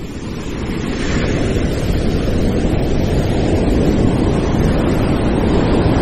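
Ocean surf rushing and breaking, swelling over the first second or two and then staying loud, with wind.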